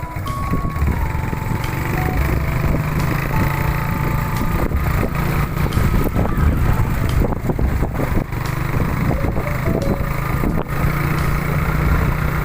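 A motor vehicle engine running steadily with a rumble, heard close. A thin melody of single high notes plays over it in the first few seconds.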